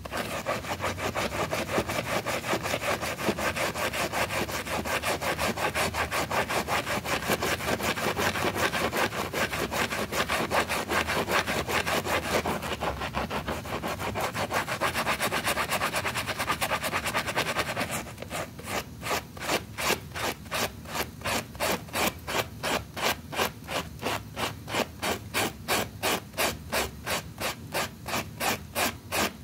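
Stiff brush scrubbing a carpet rug, rubbing back and forth. Fast, dense strokes give way about two-thirds of the way in to slower, evenly spaced strokes, about three a second.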